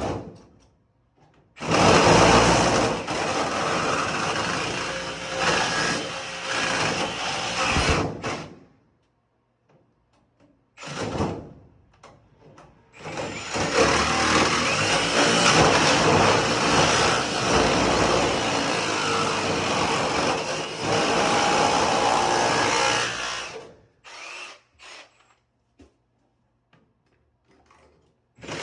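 Jigsaw with a wood blade cutting thin sheet-metal HVAC duct: two long runs of cutting, about seven and then ten seconds, with a short burst between them.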